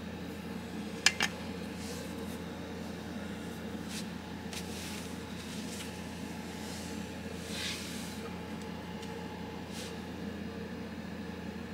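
Two sharp clicks close together about a second in, then a few faint taps, as a Spyderco Paramilitary 2 folding knife is handled, over a steady low hum.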